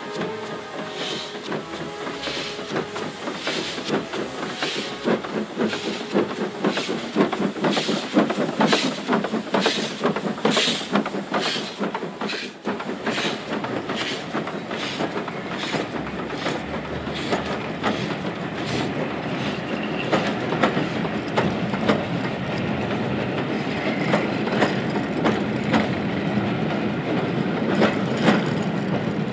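Steam locomotive Normandy, an LSWR B4 0-4-0 tank engine, working a train: its exhaust beats quicken from about one to about two a second over the first dozen seconds. They then give way to a steadier, quicker clatter of the train running on the rails.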